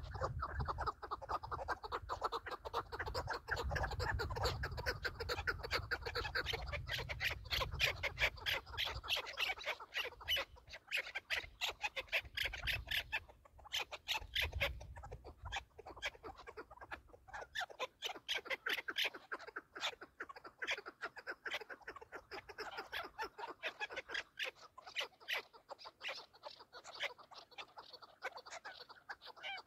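Chukar partridges calling: a rapid, unbroken series of short sharp calls. A low rumble sits under the first half and dies away after about 17 seconds.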